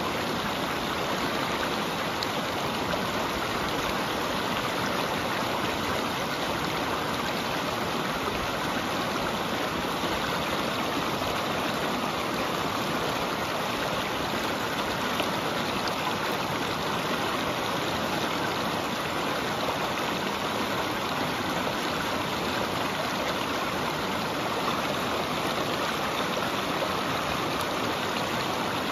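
Mountain stream rushing and splashing over boulders and stones, a steady, even rush of water.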